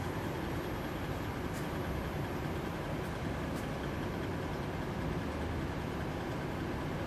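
Steady low rumbling mechanical noise, like running lab equipment or a ventilation fan, with a few faint ticks in the first half.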